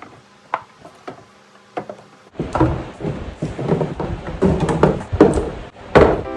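Knocks, thuds and clatter from a refrigerator and the things in it being handled, such as doors, drawers or shelves moved and items set down. A few single knocks come first, then a busy run of knocks and thuds from about two and a half seconds in.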